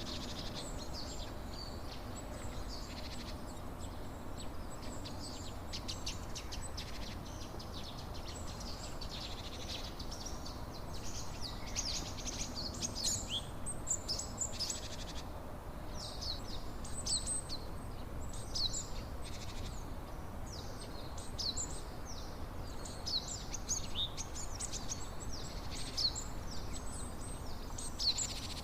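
Songbirds chirping and twittering in quick, busy strings over a steady low rushing background noise.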